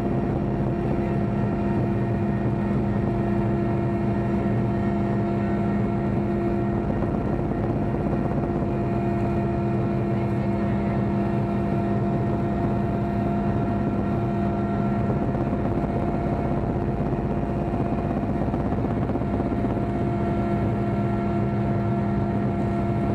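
Helicopter engine and rotor noise heard from on board: a steady drone with a constant low hum that holds the same pitch and level throughout.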